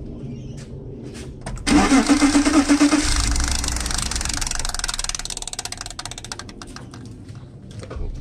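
BMW M50/M52 straight-six engine fitted with individual throttle bodies, cranked by the starter about two seconds in with rapid pulsing and firing after about a second. It then runs on, its sound easing off over the next few seconds as it settles.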